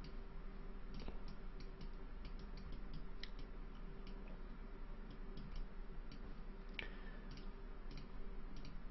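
Scattered light clicks of a computer mouse and keyboard, irregular, a few a second, over a faint steady hum.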